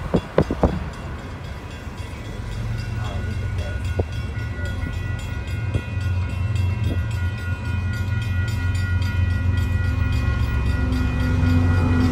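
Union Pacific freight train led by GE ES44AC locomotives approaching a grade crossing: its horn sounds as a steady held chord from a few seconds in, over a low rumble that grows louder. Three short knocks at the start.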